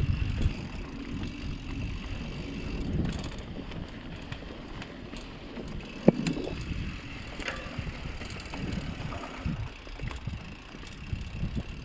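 Mountain bike rolling down a dusty, loose dirt trail: tyre noise and the rattle of the bike over the ground, with one sharp clack about six seconds in.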